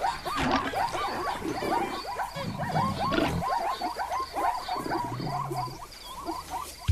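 Chorus of animal calls: many short rising-and-falling calls in quick succession, over a regular high chirp repeating about three times a second, with a few low grunts.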